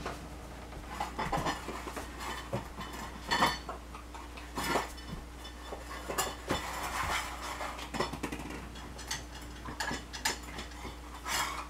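Poodle puppy nosing plastic balls about in a metal muffin tin: irregular clatters and knocks of balls against the tin and of the tin on the floor, a dozen or so, with a louder knock near the end.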